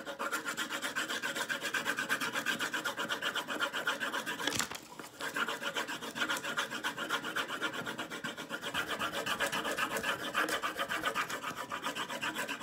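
Rapid back-and-forth scribbling on paper while colouring in, several strokes a second, with a brief pause about four and a half seconds in.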